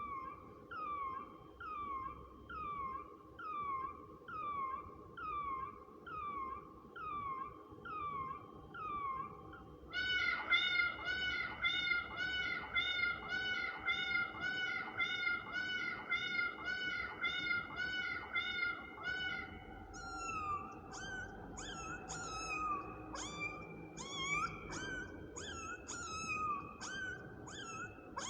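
Kitten meowing in evenly repeated short calls that fall in pitch, about one a second. About ten seconds in, a denser series of mews starts at about two a second. Around twenty seconds in, the calls turn higher and come irregularly.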